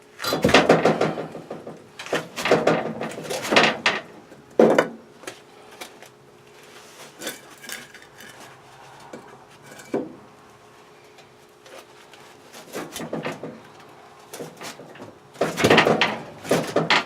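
Clanking, knocking and scraping of heavy metal in several bursts, with a sharp knock about five seconds in and another near the middle, as the old boiler and its pipes are shifted and handled. A faint steady hum lies underneath.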